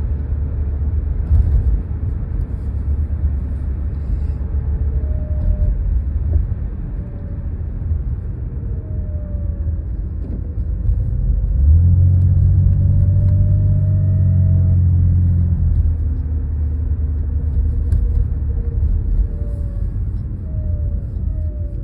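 1991 BMW E32 730iA with its M30B30 straight-six, running with a steady low rumble that swells into a louder, deeper hum for a few seconds about halfway through, while faint whines slide up and down in pitch. Among these sounds is a noise that the owner cannot identify.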